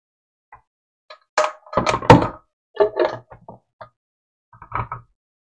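A run of hard plastic clunks and knocks as a blender jar is handled and set down onto its motor base, loudest about two seconds in, with a last short group of knocks near the end.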